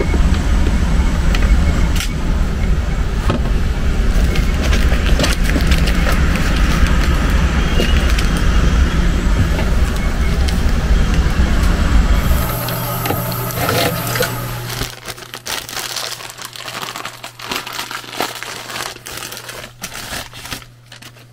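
Trane TAM9 variable-speed air handler's blower running loud, air rushing hard through a filter media cabinet too restrictive for it. The rush cuts off suddenly about twelve seconds in, leaving a steady low hum with scattered clicks and crinkles of handling.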